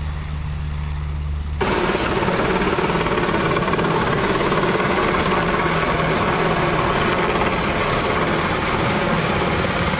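H-60-series military helicopter flying low. Its sound is a steady low hum for about the first second and a half, then jumps abruptly much louder to a rapid, continuous beat of the rotor blades over turbine noise.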